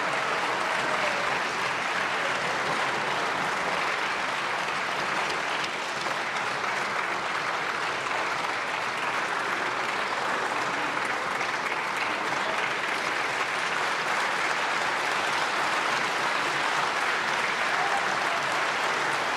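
Sustained applause from a chamber full of members of parliament clapping, steady and unbroken.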